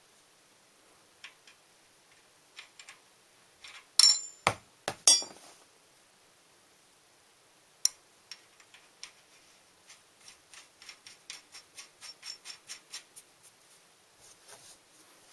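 Metal tools and bicycle parts clinking and knocking during bottom bracket and crank work, loudest in a cluster of sharp ringing metal strikes about four seconds in. Later comes a run of even clicks, about four a second.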